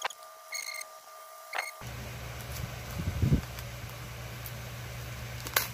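Light clicks and scratches of a utility knife being worked into a padded paper mailer envelope. About two seconds in a steady low hum comes in, with a soft thump about a second later.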